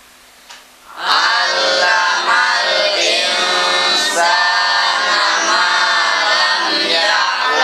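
A class of boys reciting a Quranic verse aloud in unison, chanted in a melodic recitation style. It starts about a second in, after a brief pause with a soft click.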